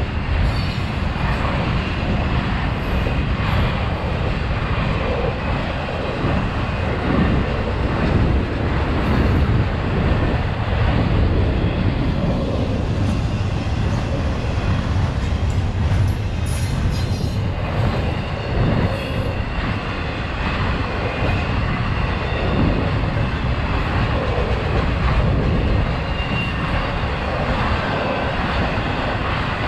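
Double-stack intermodal container cars of a freight train rolling past, a steady noise of steel wheels on rail.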